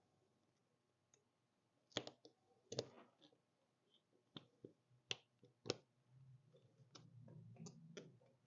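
Faint, scattered clicks and taps of a small hand tool digging dirt out of the heads of old screws set in a rubber tractor tire tread, about a dozen over the span, with a faint low rumble joining for the last couple of seconds.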